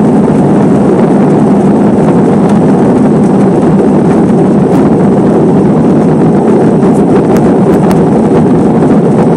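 Airbus A320 engines at takeoff thrust heard from inside the cabin: a loud, steady roar during the takeoff roll and liftoff.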